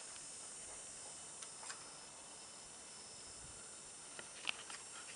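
Quiet field ambience: a steady high insect hiss, with a few faint clicks about a second and a half in and again near the end.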